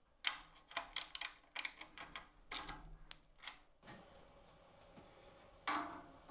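Irregular light clicks and metallic taps of bolts being tightened with a hand tool into the plastic belt guard of a belt and disc sander, stopping after about four seconds, then a short scrape near the end.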